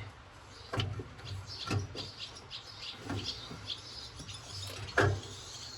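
Four sharp metallic knocks and clinks as tools and parts are handled against the tractor during alternator removal, the loudest about five seconds in. Birds chirp in the background.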